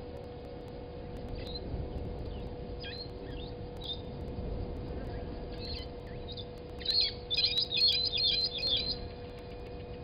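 Brown-headed parrots calling: scattered short, high notes, then about seven seconds in a loud, rapid run of chirps lasting about two seconds. A steady low hum runs underneath.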